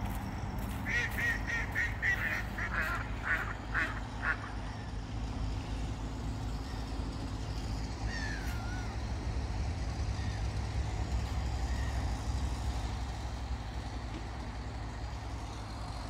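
Mallard ducks quacking in a quick run of about eight quacks over the first few seconds, with a single short falling call about eight seconds in. Underneath is the steady low hum of a motorised bike's small engine ticking over.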